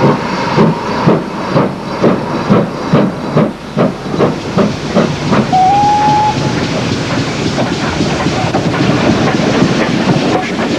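Steam locomotive working a train, its exhaust beats coming about two to three a second and quickening. About halfway through there is a short whistle blast, after which the beats merge into a steady rush of steam and running noise.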